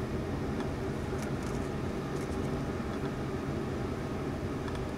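Steady low background hum, with a few faint crackles between about one and two and a half seconds in and again near the end.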